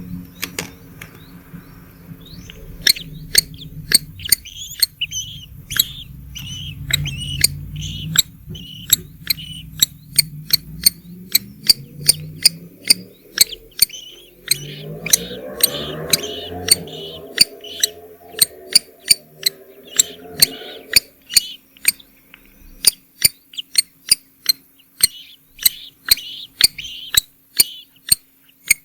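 Bird chicks in a nest chirping with short high calls, among sharp clicks coming about twice a second. A low hum with overtones rises in pitch and fades out about three-quarters of the way through.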